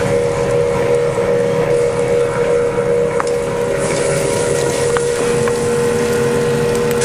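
A machine running with a steady, even hum that holds one pitch, with a couple of faint clicks.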